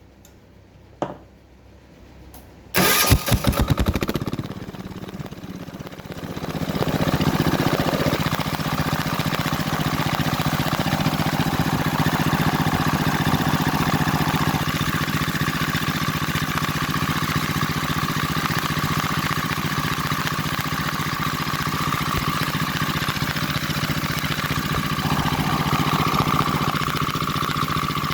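A Wen D6000 diesel generator's engine is cranked about three seconds in after a short click. It fires and builds up speed over the next few seconds, then runs steadily.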